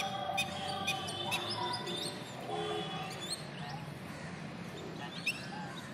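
Birds chirping, with short high calls and quick rising chirps scattered through. A few sharp clicks come about every half second in the first second and a half.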